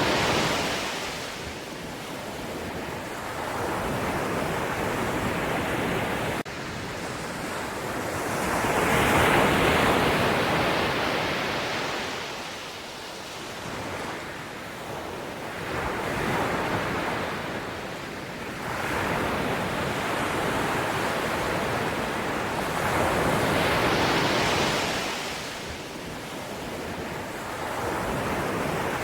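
Sea waves washing in one after another, each swell building and fading over several seconds, about every seven or eight seconds.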